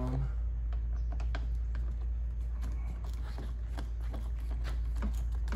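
Small, irregular clicks and taps of hands and a driver working the screws and push pins of a plastic engine splash shield, over a steady low hum.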